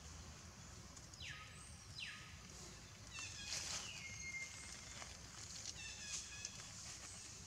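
Faint high-pitched cries of a baby macaque: two short falling squeals about a second apart, then a few thin, wavering calls.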